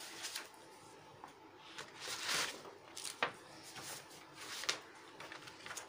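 Sheets of drawing paper being handled and slid across a desk, with a rustle about two seconds in and a couple of light ticks after it.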